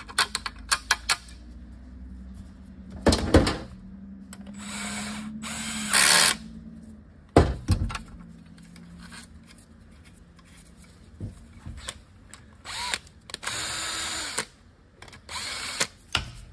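Cordless drill/driver run in several short bursts, driving in the transmission filter bolts, with sharp metal clicks and knocks of bolts and parts between the runs.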